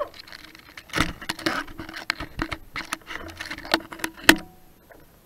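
Irregular sharp clicks and knocks, about a dozen, from a Traxxas Summit RC truck being handled right next to its mounted camera. The last two knocks, near the end, are the loudest.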